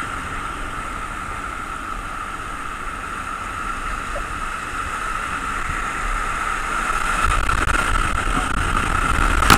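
Whitewater rapids rushing around a kayak: a steady wash of churning river water that grows louder over the last couple of seconds as the boat runs into the rapid.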